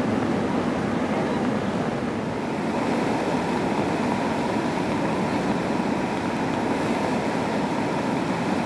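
A swollen river in flood rushing: a steady rush of water that does not let up.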